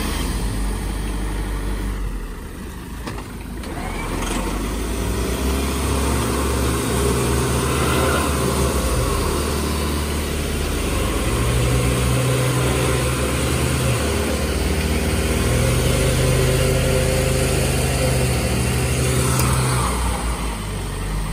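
Motorhome and Land Rover Defender engines running while a winch pulls the stuck motorhome through mud. An engine revs up and holds for a few seconds at a time, most strongly in the second half.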